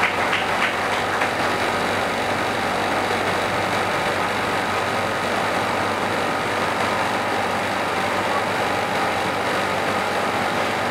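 Steady hum and hiss of a hall's air-conditioning running, with a few faint constant tones in it.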